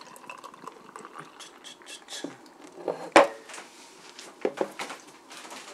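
Light clinks and knocks of tableware and an aluminium beer can on a dining table, with one sharper knock a little over three seconds in.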